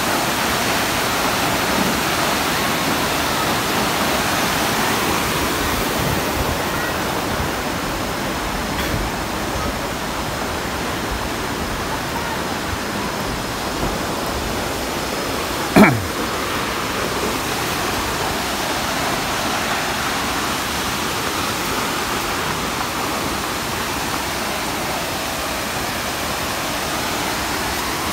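Waterfall rushing steadily, one even hiss of falling water. About halfway through, a single brief sound sweeps quickly down in pitch and is the loudest moment.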